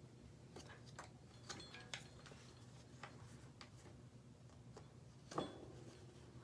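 Faint, scattered clicks and ticks of a tire lever and tire bead against a bicycle wheel rim as a tight bead is levered onto the rim, with one brief louder sound about five seconds in.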